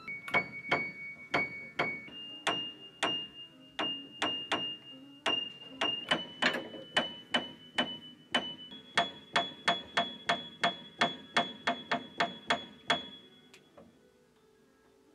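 A high treble note of a Yamaha upright piano struck over and over, about two to three times a second, while the tuner sets its pitch with the tuning lever. Every few seconds the pitch steps up to the next note, and the strikes stop a little before the end.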